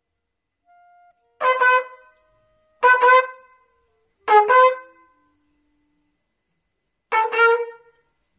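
Solo trumpet playing short syncopated figures: four quick pairs of notes separated by rests. These are the off-beat figures of a cumbia rhythm, the syncopation being demonstrated.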